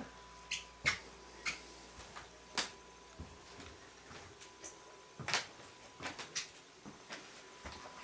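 Handling and movement noise of a handheld camera: irregular light clicks and taps, about two a second, over a faint steady high tone.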